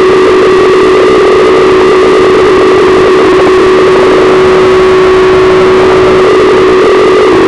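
Live harsh noise: a loud, heavily distorted, unbroken wall of electronic noise with a steady pitched drone held through it.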